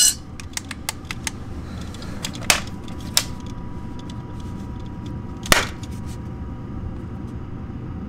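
Gas furnace starting up: the draft inducer motor runs steadily with a faint whine while the hot surface igniter warms before the burners light. Scattered light clicks, with three sharper ones about two and a half, three, and five and a half seconds in.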